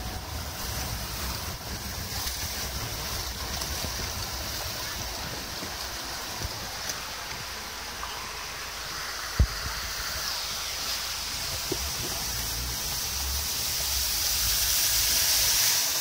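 Car driving through floodwater running down a road, heard from inside the cabin: a steady hiss and wash of water around the tyres over a low rumble. The hiss swells louder near the end, and there is one sharp knock a little past halfway.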